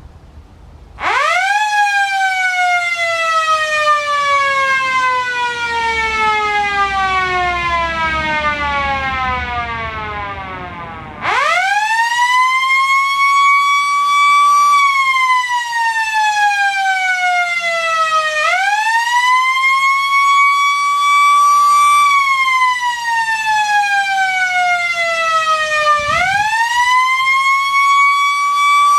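Six-port Skil/Sher Wailing Joe rotary fire siren. About a second in it winds up fast, then coasts slowly down in a single short wail. Around eleven seconds in it winds up again and sounds the alert: a loud wail that rises and falls over and over, about every seven seconds.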